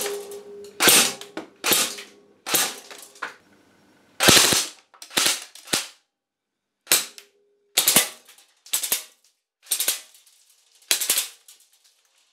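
About a dozen sharp shots from an airsoft or air gun, roughly one a second with a short pause midway, as BBs strike a paper target and knock over metal duck knock-down targets; a few hits leave a brief metallic ring.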